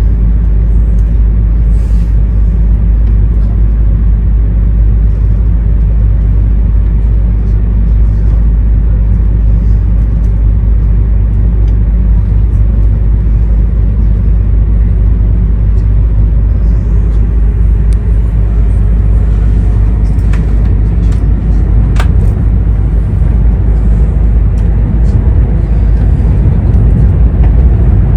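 Running sound inside an E2 series 1000 Shinkansen car: a steady low rumble from the wheels and bogies on the track. A single sharp click comes about three-quarters of the way through, and the rumble grows a little louder near the end.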